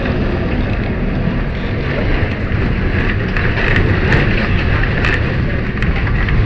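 Lisbon Tram 28 streetcar running on its rails: a steady rumble with brief higher screeches and a few clicks about halfway through.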